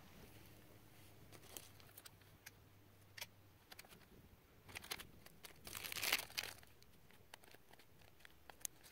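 Faint crinkling and rustling of pepperoni packaging and aluminium foil being handled, with scattered small ticks as pepperoni slices are laid on a frozen pizza. The loudest stretch of crinkling comes about six seconds in.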